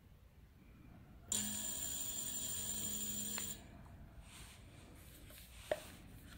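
Direct-drive brushless gearless hub motor run briefly on the throttle: a steady electric whine with a high-pitched controller tone for about two seconds. It cuts off suddenly as the throttle is released, and a single click follows near the end.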